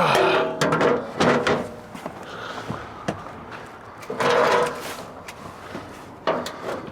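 A series of short clunks and scrapes, like doors or panels being handled; the loudest come at the start and about four seconds in.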